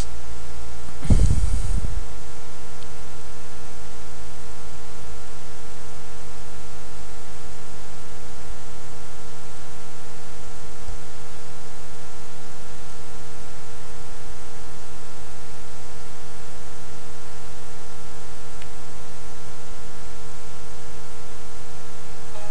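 Steady electrical hum and hiss on the recording, with several fixed tones, and a brief low thump about a second in.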